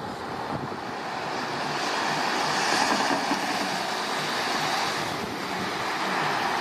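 Steady rushing hiss of rain and wind over a wet street, swelling a couple of seconds in, with a faint low pulsing underneath.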